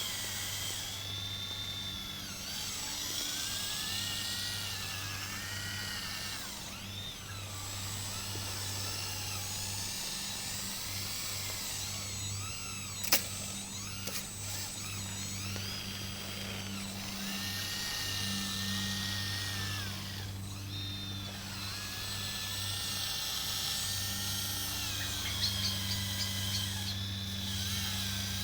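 Electric motors of remote-controlled model construction machines whining, their pitch rising and falling as the machines move, over a steady low hum. A sharp click comes about halfway through.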